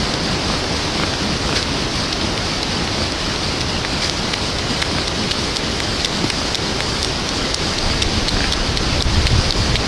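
Heavy hurricane rain falling steadily, with scattered drop ticks and a low rumble of wind that swells near the end.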